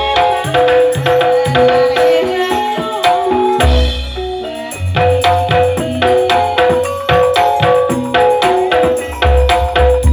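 Live campursari gamelan music accompanying a tayuban dance: struck metallophone notes repeat over hand-drum strokes. Heavy deep booms come about four seconds in and again near the end.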